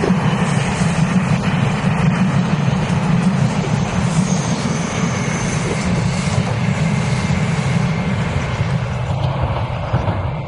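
Taiwan Railways PP Tze-Chiang push-pull express passing close at speed, its coaches and then the rear E1000-series electric power car rolling by with a steady low rumble of wheels on rail. The rumble eases a little near the end.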